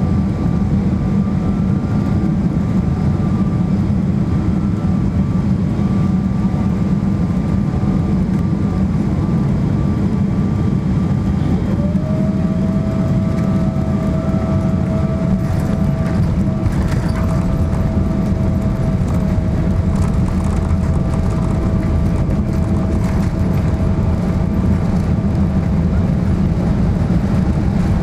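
Cabin noise of a Boeing 777-300ER on final approach and touchdown: a steady low rumble of airflow and its GE90 engines, heard from a seat over the wing. A steady whine sets in about halfway, and a little later come light rattles as the wheels meet the runway.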